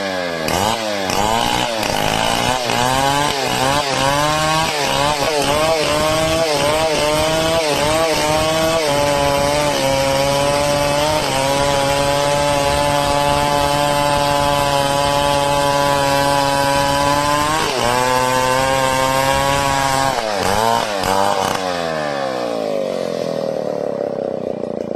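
Chainsaw revving in repeated bursts, then held steady at high speed for about eight seconds as it cuts through wood. It is then revved a few more times and winds down toward idle near the end.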